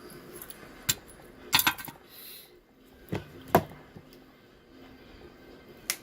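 Sharp clicks and light clinks of small tools and kit parts being handled and set down on a workbench, about five of them at uneven intervals, with a close pair in the middle.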